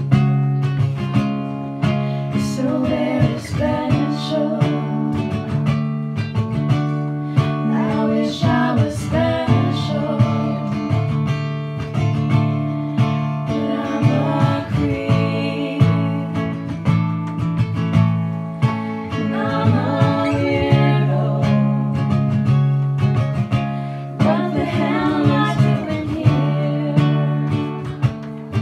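Acoustic guitar strummed steadily as accompaniment, with women's voices singing in harmony over it in phrases that come and go.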